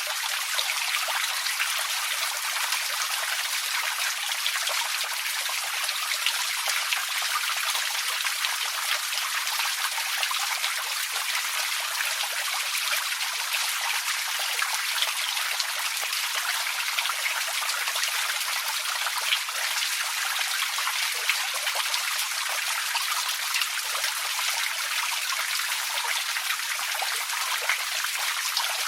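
A small creek trickling and splashing over stones, a steady bright rush of water with many fine droplet splashes.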